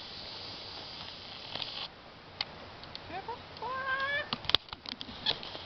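An animal's drawn-out call, rising in pitch, about three seconds in. Before it a steady high hiss cuts off abruptly about two seconds in, and a few sharp clicks follow near the end.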